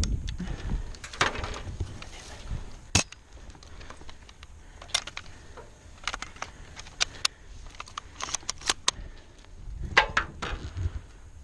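Scattered sharp clicks and snaps over low rustling movement. The loudest click is about three seconds in, with a quick run of them around eight to nine seconds and a few more near the end.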